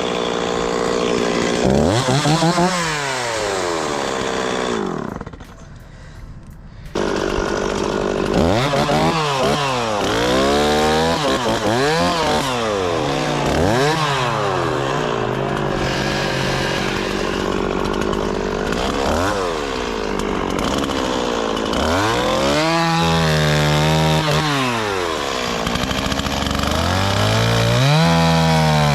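Two-stroke chainsaw revved again and again, its engine pitch climbing to full throttle and falling back, as it cuts into trees. The sound drops away for about two seconds some five seconds in.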